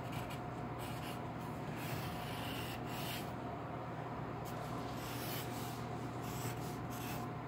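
Pencil scratching and rubbing on paper in short, irregular strokes while drawing, over a steady low hum.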